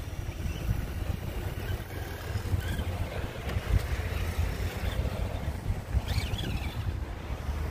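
Wind noise on the microphone, a steady low rumble, over the faint whine of electric RC crawler trucks (Traxxas TRX-4 '79 Bronco and Redcat Gen7 Pro) driving.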